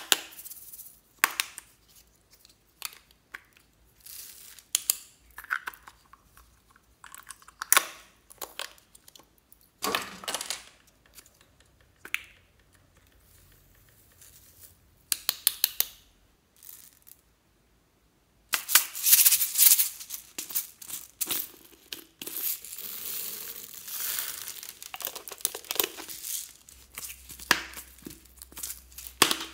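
Plastic capsules clicking and snapping as they are handled and opened, with glitter and small beads rattling into a glass dish. About two-thirds of the way in a denser, louder run of crinkling and rattling starts, as a plastic bottle of glitter and sequins is squeezed and shaken.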